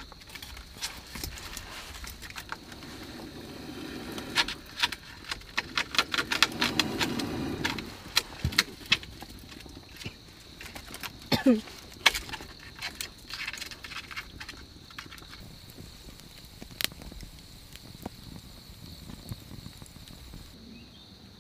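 Sticks and kindling being handled and snapped while a small wood fire is lit and built up in a stone hearth: a quick string of sharp clicks and snaps in the first third, then scattered cracks as it burns. A brief squeak that rises and falls comes about eleven seconds in, over a steady high whine.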